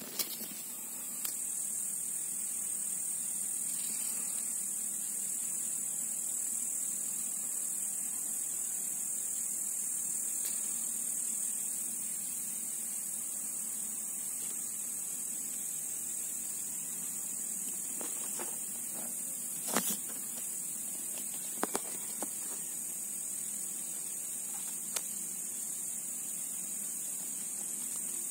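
Steady, high-pitched insect buzzing, cricket- or cicada-like, that swells in about a second in and holds. A few sharp clicks sound in the second half.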